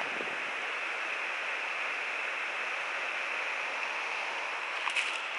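Steady rush of flowing river water, with a couple of faint clicks about five seconds in.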